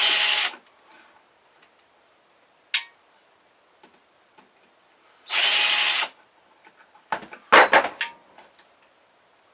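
Power screwdriver running in two short bursts about five seconds apart, backing out screws from an alarm clock's case. A sharp click comes between the bursts, and a cluster of knocks and clatter follows near the end.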